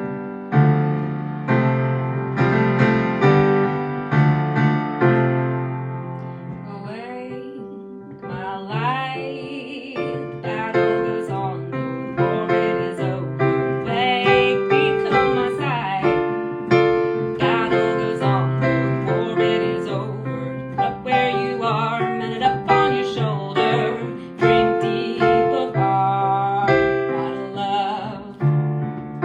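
Electric keyboard playing sustained worship chords, with a wordless voice gliding and wavering over them from about seven seconds in.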